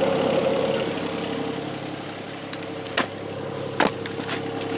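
Volvo EC20 mini excavator's diesel engine idling steadily, with a held tone over its hum. Two sharp knocks come about three and four seconds in.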